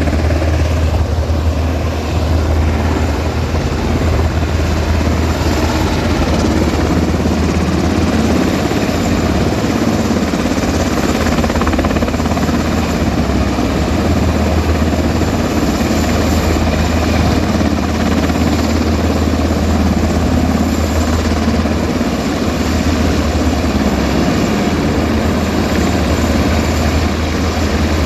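Rescue helicopter running, its rotor and turbine giving a loud, steady low throb with no letup.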